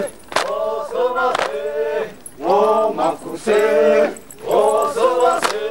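Sümi Naga warriors chanting war cries together: short, repeated calls from several men's voices that slide in pitch, about one a second, with a few sharp knocks between them.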